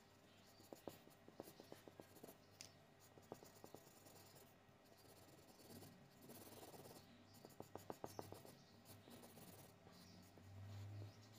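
Felt-tip highlighter marker scratching on paper in quick back-and-forth colouring strokes, faint, coming in short bursts with pauses between. A brief low rumble comes near the end.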